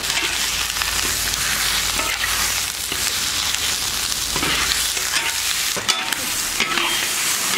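Goose meat sizzling in a hot black wok over a wood fire, stir-fried so it browns before stewing. A metal spatula scrapes against the wok as the pieces are turned.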